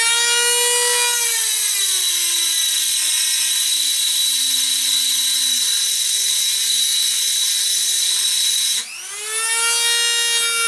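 Dremel rotary tool with an emery-impregnated wheel grinding into an aluminium AR-15 lower receiver. The motor whine falls steadily in pitch as the wheel is pressed into the metal and bogs under the load. Near the end it rises back to full speed as the wheel comes off, then the tool is switched off.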